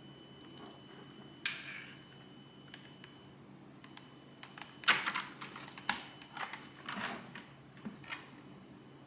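Keys of a Dareu EK145 keyboard being pressed in separate, irregular clacks: one about a second and a half in, then a handful of scattered presses in the second half.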